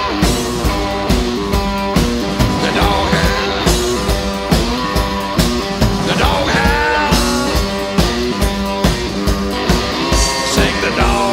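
Live blues-rock instrumental break: electric slide guitar playing gliding phrases over a low droning note, with a steady drum beat.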